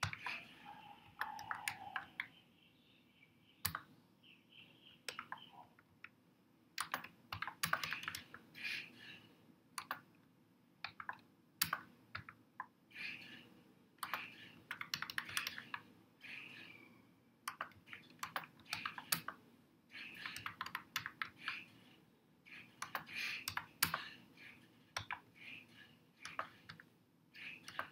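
Typing on a computer keyboard: quick runs of key clicks in short bursts, with brief pauses between them.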